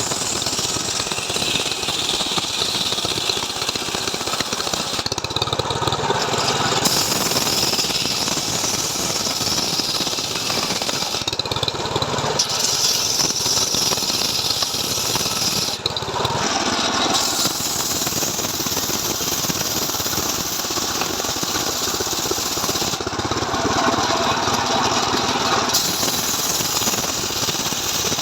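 Stihl MS 381 two-stroke chainsaw running continuously under load as it saws lengthwise through a log. Its tone shifts every few seconds as the load on the chain changes.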